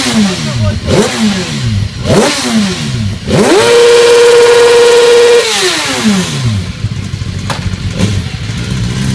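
A motorcycle engine being revved while the bike stands still: a few quick throttle blips, each rising sharply and dying away, then the throttle held open at high revs for about two seconds before the revs fall back to a rough idle. A single sharp knock comes near the end.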